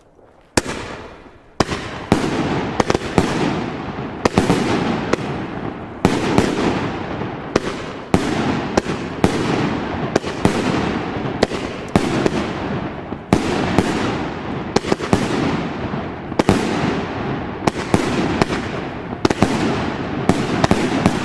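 GAOO Hammer 30 mm salute battery firing shot after shot: very loud sharp bangs, roughly one a second and sometimes closer together, each ringing out in a long echo. The first bang comes about half a second in and they keep going.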